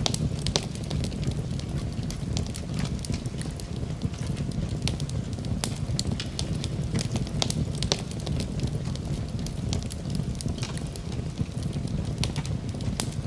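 Wood fire burning in a fireplace, crackling and popping irregularly, over a steady low rumble.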